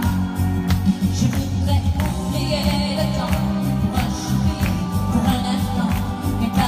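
Live pop song played through a PA: a woman singing into a microphone over a recorded backing track with a bass line and a steady beat.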